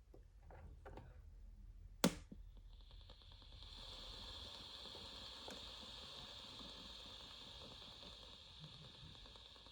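A sharp click about two seconds in, then a faint steady hiss of static from the General Electric 7-2930D radio's speaker, tuned to the empty VHF-low TV sound band.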